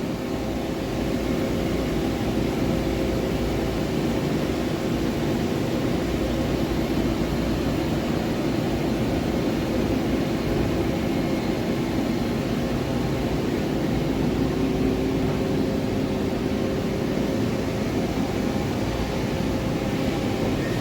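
Forest-Line MajorMill 5-axis CNC gantry mill running while its X and Y axes traverse: a steady machine hum with several constant tones over a low rumble.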